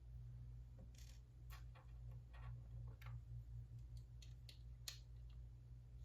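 LEGO bricks being handled and pressed together: a scatter of faint, sharp clicks, the clearest just before five seconds in, over a low steady hum.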